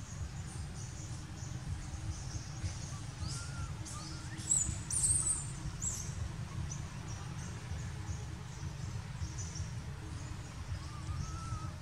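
Baby macaque crying: short, sharp high-pitched squeaks, loudest around five seconds in, and two faint drawn-out whimpers that rise and fall, about three seconds in and near the end. A steady low rumble lies underneath.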